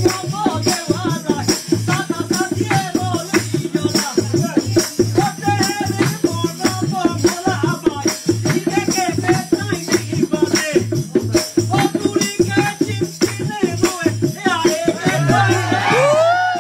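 Live Pahari folk music for nati dancing, with a fast, steady rattling percussion rhythm over a repeating low beat. Near the end a voice sings out in long, gliding phrases.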